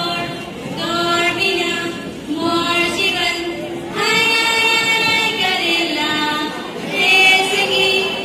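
Girls' voices singing a song together in slow phrases, each note held for about a second.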